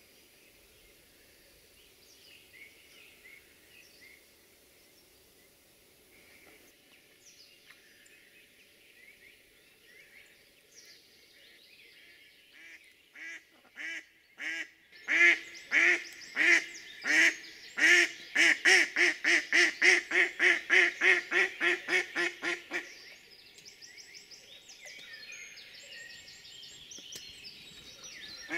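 Decoy mallard hen quacking a long run of loud quacks, about three a second, slow at first and speeding up, then stopping a few seconds before the end. Faint small-bird calls come before it.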